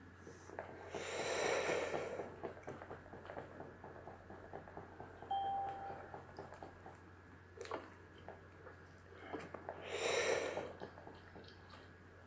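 A man smoking a cigarette, breathing smoke in and out: two long, breathy breaths of about a second and a half each, one near the start and one about ten seconds in. Faint crackles and small clicks come between them.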